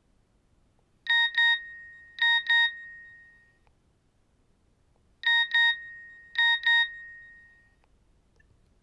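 Nokia 6260 mobile phone's built-in "Message" alert tone: two quick pairs of high electronic beeps, the last one ringing out and fading. The tone plays twice, about four seconds apart.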